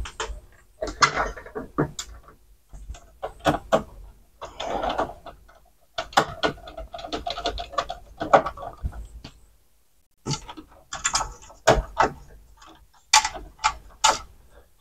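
Irregular clicks, knocks and rattles of hands handling a circuit board and fitting a screw into the open metal chassis of a Sony CDP-CX355 CD changer, with a brief pause about ten seconds in.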